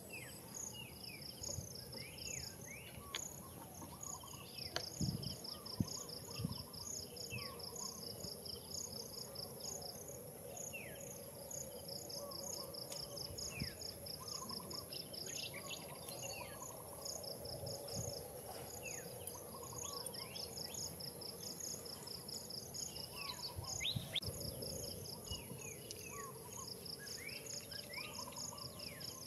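Outdoor tree-canopy ambience of insects: a steady high drone under pulsing trills that start and stop every few seconds. Short falling bird chirps come in scattered through it, and there are a couple of soft knocks about five seconds in.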